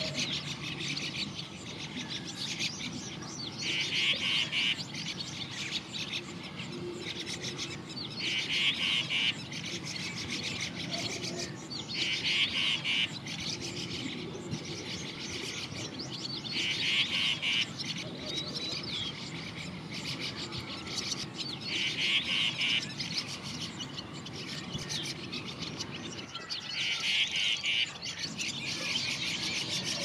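Green bee-eater (Merops orientalis) calling: a short, rapid trill of about a second, given six times at intervals of four to five seconds, with fainter scattered chirps between.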